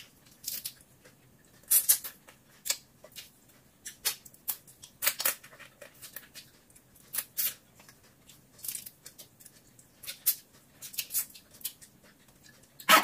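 Close-up eating sounds of shellfish eaten by hand: irregular sharp clicks and crackles of shell being picked and peeled, with mouth smacking and chewing, the loudest crack just before the end.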